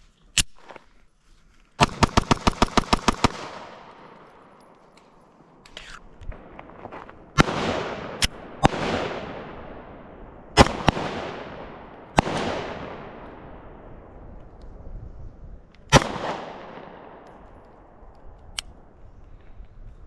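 9mm pistol shots from a Glock 43X MOS. A rapid string of about a dozen shots comes in under two seconds near the start, then about five single shots are spread over the following ten seconds, each trailing off in a long echo.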